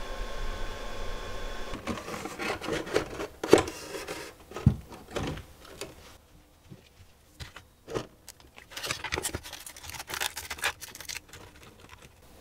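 Handling noises from the opened plastic-and-metal hull of a 1:16 RC model tank: an uneven series of clicks, knocks and short scrapes as parts are moved, with a sharp knock about three and a half seconds in.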